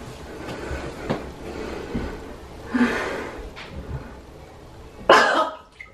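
A woman faking sickness: a short breathy heave about three seconds in, then a loud, harsh cough near the end, put on as though coughing up blood.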